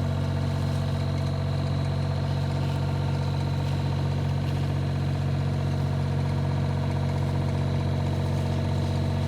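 Excavator's diesel engine running steadily with an even, unchanging drone.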